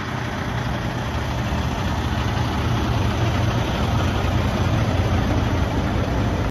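Semi-truck diesel engine idling: a steady low hum with a hiss over it, even throughout and cut off abruptly at the end.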